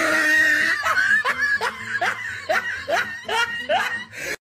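A person laughing: a run of short, rising 'ha' sounds, about three a second, that breaks off just before the end.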